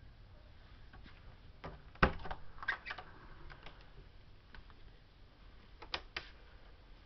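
A few sharp clicks and knocks over a low hiss: a hard knock about two seconds in followed by lighter clicks, and two more clicks near the end.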